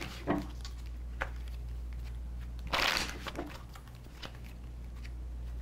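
A deck of tarot cards being handled and shuffled: a brief rustling riffle about three seconds in, with lighter ticks and rustles around it, over a steady low electrical hum.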